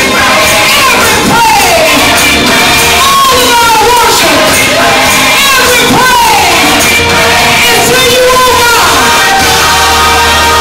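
Loud live gospel praise music in a church: a voice sings in swooping, sliding phrases over steady held chords and bass, with the congregation audible in the mix.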